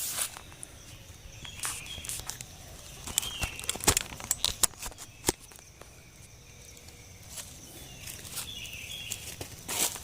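Footsteps and rustling in dry leaf litter with scattered sharp knocks and clicks, as someone moves about handling gear while setting up a camp table and chair. A faint steady high tone runs underneath.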